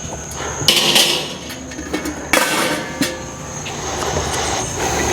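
A few sharp metal clanks and knocks from kettle grill parts being handled during assembly, the clearest about a second in and again around two and a half and three seconds in.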